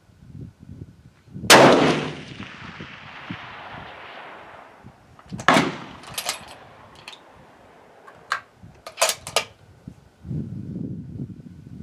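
A single shot from a Savage 10FP-LE .308 Winchester bolt-action rifle about a second and a half in, with a long echo dying away over a few seconds. A few seconds later comes a run of sharp metallic clicks and clacks as the bolt is worked.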